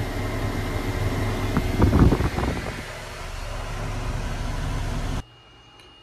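SofieLite 24-volt aircraft air conditioner running inside a Beechcraft Baron cabin on ground power, pre-cooling the cabin: a steady rush of air over a low hum. A brief low rumble comes about two seconds in, and the sound cuts off abruptly near the end.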